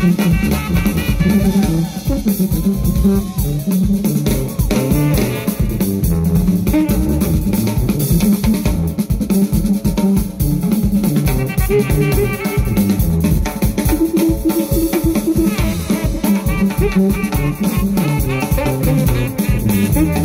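Live jazz band music: drum kit playing a dense, driving rhythm under a tuba bass line moving in short steps.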